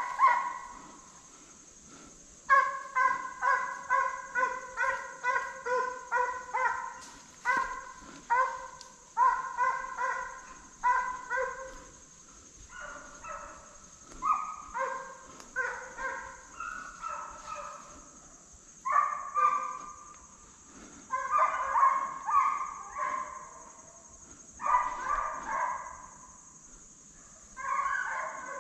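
Deer hounds barking and baying on a deer's track, in runs of rapid barks with short pauses between.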